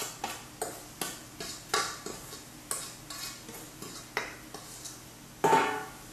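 A metal spoon scraping and tapping against a stainless-steel bowl as mango pickle is scraped out of it, a series of short strokes about twice a second. Near the end comes one loud, ringing clank as the steel bowl is set down on the counter.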